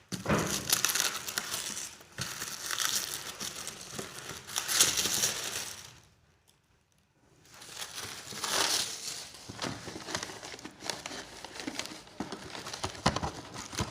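Wrapping on a fireworks box being crinkled and torn off by hand, in irregular rustling bursts. It stops for about a second and a half midway, then starts again.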